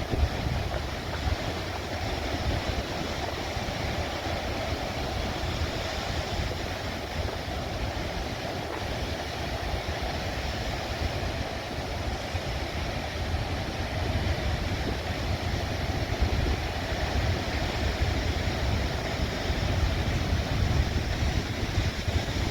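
Heavy storm surf breaking on a rocky shore: a steady roar of crashing water, with wind buffeting the microphone as a deep, fluttering rumble.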